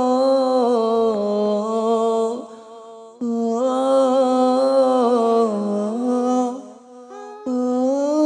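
Male solo vocalist singing a devotional sholawat melody into a microphone, with long, ornamented held notes and no clear words. The melody comes in phrases, each breaking off briefly about two and a half and six and a half seconds in before the voice comes back.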